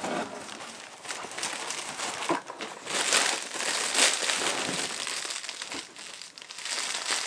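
Cellophane gift wrap crinkling and rustling as a wrapped mug is handled and pulled out of a jute tote bag, loudest around the middle.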